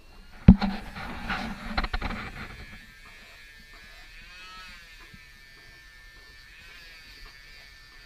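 Cordless handheld rotary tool grinding down a bird's toenails: a steady high motor whine that wavers slightly as the bit works the nail. About half a second in there is a sharp knock, followed by a couple of seconds of scuffling handling noise.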